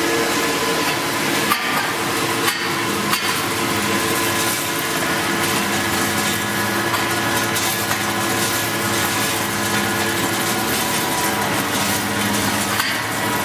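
Single-screw plastic pelletizing machine running while polycarbonate scrap is fed in: a steady mechanical drone with several held tones over a hiss. A few sharp clicks come between one and three seconds in.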